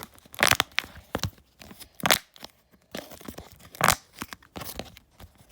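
Homemade dimple fidget toy being pressed with the fingers, giving a series of short, sharp pops at uneven intervals.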